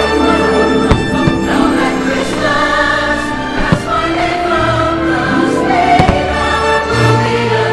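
Choir and orchestra music from the fireworks show's soundtrack, with a few sharp fireworks bangs over it: about a second in, near the middle, and again past six seconds.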